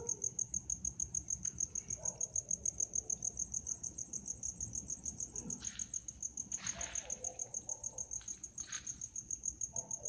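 Cricket chirping in a fast, steady, high-pitched rhythm, with a few brief rustling noises in the second half.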